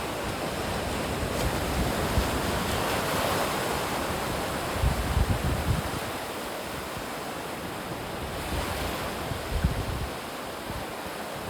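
Ocean surf washing steadily ashore, with wind buffeting the microphone in low gusts about halfway through and again near the end.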